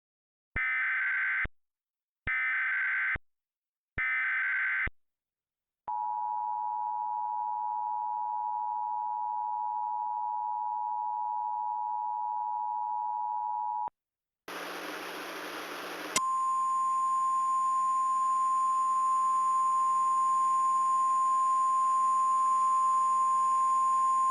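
Emergency Alert System tornado-warning tones: three short bursts of SAME digital header data, then the two-tone EAS attention signal held steady for about eight seconds. After a brief pause, a burst of radio hiss gives way to a steady single-tone weather radio warning alarm that continues over faint hiss.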